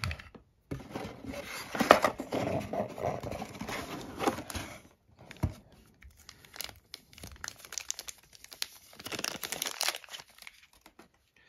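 Packaging being handled: a dense rustle for the first few seconds, then a clear plastic bag crinkling in scattered crackles as a camcorder battery pack is unwrapped from it.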